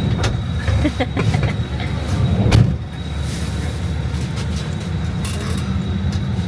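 A motor vehicle running: a steady low engine and road rumble, with scattered knocks and rattles.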